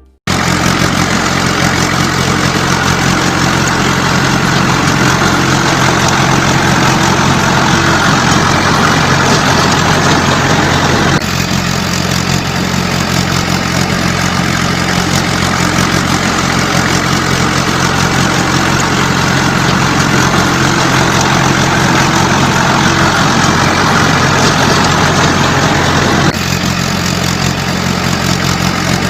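Heavy vehicle engine running steadily at a constant speed, its drone unchanging, with two sudden jumps in the sound about 11 and 26 seconds in.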